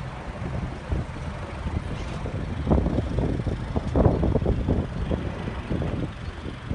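Low rumble of a car, with uneven louder surges in the middle.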